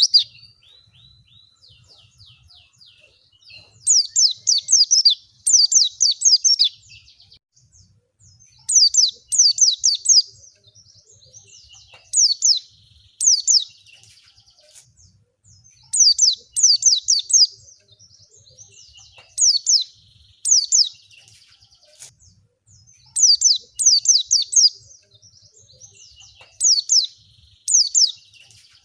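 White-eye (pleci) song used as a lure: bursts of rapid, high, downward-sweeping notes about a second long, mostly in pairs every three to four seconds, with faint chirps between.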